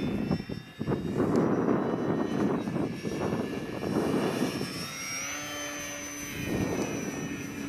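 Radio-controlled model airplane flying overhead, its motor and propeller giving a steady whine that bends up slightly in pitch about five seconds in. Gusty wind noise rumbles on the microphone through the first half.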